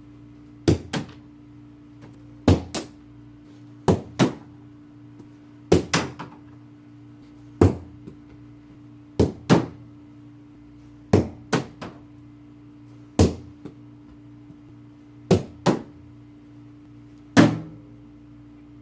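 Sharp knocks, in twos and sometimes threes, about every two seconds, over a steady low hum.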